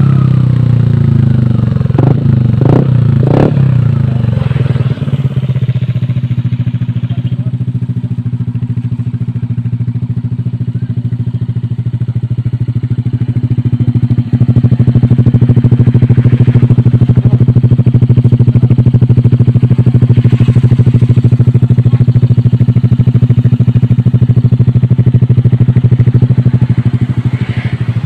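A Yamaha Aerox 155's single-cylinder engine runs through an aftermarket F2Racing stainless-steel full-system exhaust with a deep bass note. It drops from a rev back to a steady idle at the start, with three short sharp knocks about two to three and a half seconds in, and the idle gets louder about halfway through.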